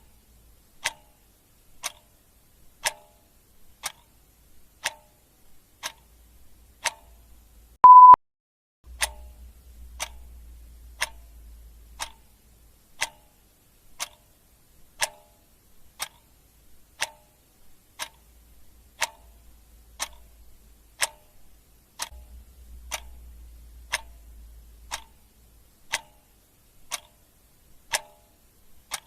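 Clock ticking steadily, one tick a second. About eight seconds in, a short, loud beep at one steady pitch sounds over the ticking.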